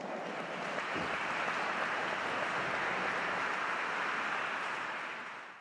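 Audience applauding, a steady dense clapping that drops away near the end.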